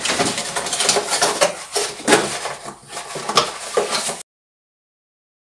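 Irregular clattering and rustling of hard plastic as a cordless work light and its clear plastic packaging are handled. It cuts off suddenly about four seconds in.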